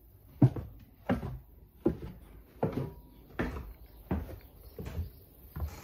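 Footsteps going down wooden stairs: about eight even footfalls, a little under a second apart.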